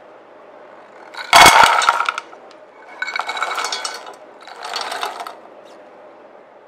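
Frozen blueberries poured into a stainless steel bowl, clattering and rattling against the metal in three pours, the first the loudest.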